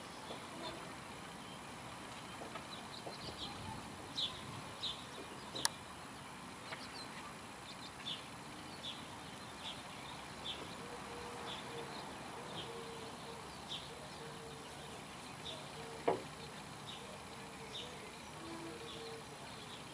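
Steady outdoor hiss with a short high chirp repeating roughly every second. There are two sharp clicks, and a faint buzzing hum runs through the second half.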